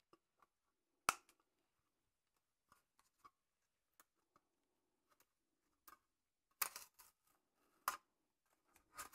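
Stainless-steel slicing and grating discs from a food-processor attachment being handled and set down on a worktop: sparse sharp clicks and clinks. The loudest comes about a second in, with a quick cluster near the seven-second mark and two more near the end.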